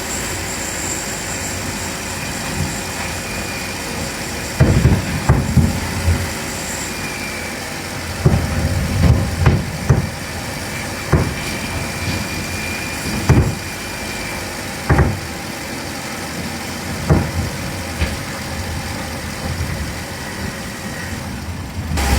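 Irregular low clunks and knocks from a car's suspension, coming singly and in short clusters over a steady engine and road sound: the suspension noise that is the fault being shown.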